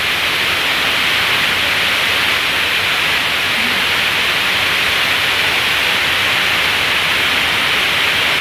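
Steady rushing hiss of falling water from the waterfall and its stream, even and unbroken.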